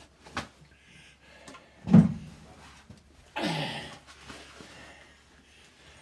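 Handling of a heavy Caterpillar Sixty cylinder head as it is carried and lifted: a click early on, a single sharp heavy thump about two seconds in, and a short rough scuffing noise about a second and a half later.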